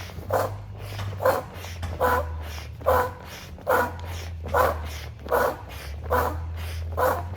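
Built-in foot pump of an inflatable sleeping pad being stepped on over and over, each press forcing out a short puff of air with a slight squeak, about one a second.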